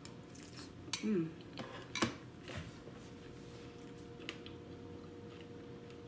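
A metal spoon clicks twice against a bowl while eating, with a short hummed 'mm' between the clicks and soft mouth sounds. A faint steady hum lies underneath.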